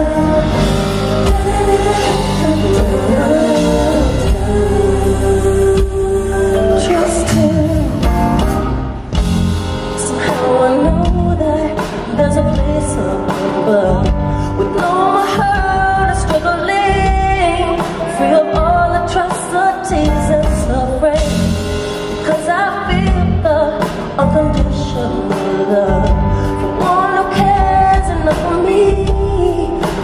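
A female vocalist singing a slow ballad live into a microphone, her voice sliding through runs of notes over a live band's accompaniment.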